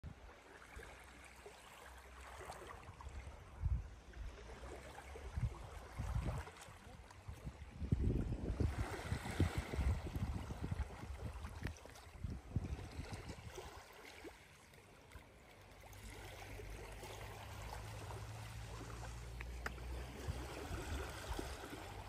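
Calm sea water washing gently on a pebble shore, with irregular gusts of wind buffeting the microphone, strongest about eight to ten seconds in.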